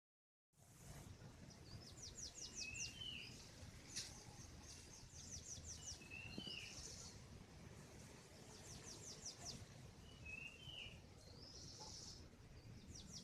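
A songbird repeating the same short song phrase about every three seconds: a quick run of high, falling notes, then a lower slurred note, over a faint low rumble.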